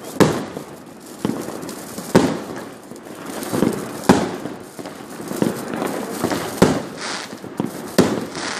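Fireworks going off across a city: about eight sharp bangs of exploding aerial shells, irregularly spaced roughly a second apart, over a continuous background of more distant fireworks.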